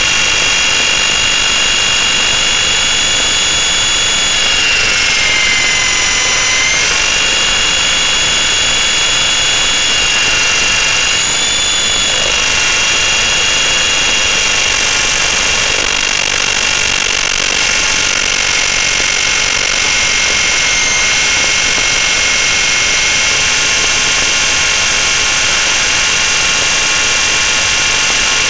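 Radio-controlled helicopter in flight, heard from its onboard camera: a steady high whine from its motor and rotors, with several pitches at once over a constant rush of air. The pitch dips for a couple of seconds about five seconds in, and briefly again later, as the load changes.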